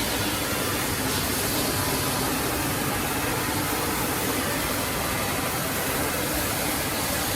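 Woodmaster 4-axis CNC wood router running steadily, an even, unbroken machine noise with a few faint steady tones, while it machines wooden chair legs.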